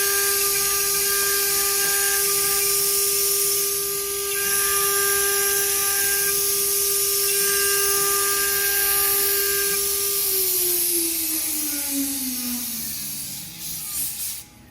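CNC router spindle running at a steady high whine over a loud hiss. About ten seconds in, the whine falls steadily in pitch as the spindle winds down and the sound dies away.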